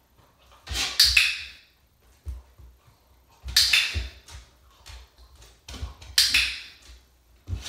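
A puppy's claws scraping on a nail board (scratchboard) in three short bursts, about one, four and six seconds in, with light knocks of paws between them.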